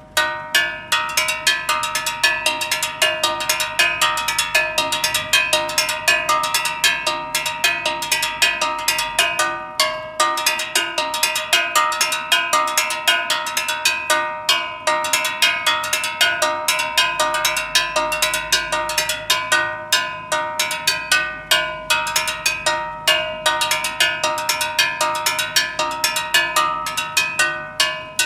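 Steel gas cylinder struck quickly and rhythmically with a metal tool, ringing like a bell with each hit: a gas seller's own rhythm, beaten to announce that the delivery truck is passing.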